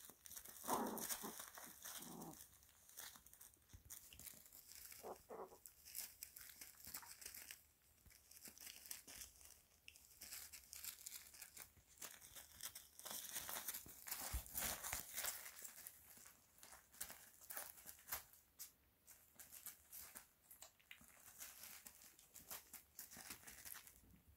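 Faint crinkling and rustling of plastic sheeting as Italian Greyhound puppies crawl over it, with many small sharp crackles. A couple of short puppy whimpers come about a second in and again around five seconds in.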